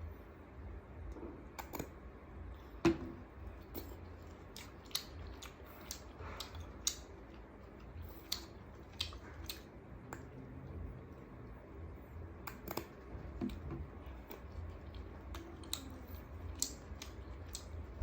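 Close-miked eating sounds: irregular small clicks and crunches of chewing and utensils, with one sharper click about three seconds in, over a steady low hum.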